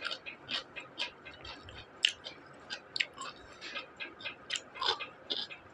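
Close-miked chewing of crisp fried onion pakoda: irregular short crunches and wet mouth clicks, about two or three a second.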